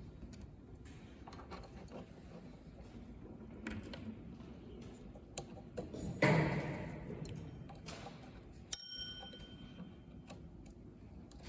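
Small metal tooling parts and tools clicking and clinking as they are fitted to the soldering machine. About six seconds in comes a louder clatter that fades over a second, and near nine seconds a sharp metallic ping rings on briefly.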